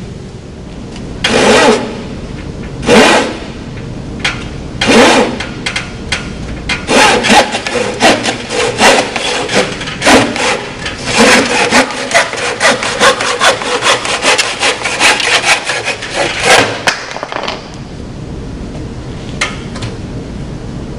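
Traditional handsaw cutting a wooden board. It starts with three slow, separate pull strokes to cut a starting groove, then saws back and forth at about two strokes a second for some ten seconds until the cut is through.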